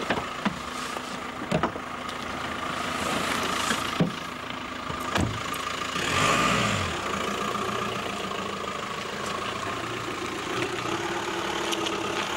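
Police car engine idling steadily, with a few sharp clicks and knocks in the first five seconds and a brief louder noisy swell about six seconds in.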